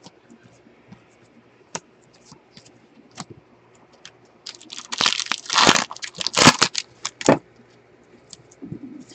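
Stack of trading cards being handled with gloved hands: scattered soft clicks of cards slid one behind another, then about three seconds of loud, dense rustling and snapping about halfway through as the stack is shuffled and squared.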